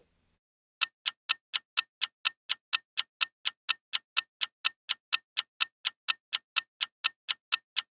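Ticking clock sound effect counting down a quiz answer timer, about four sharp ticks a second, starting about a second in.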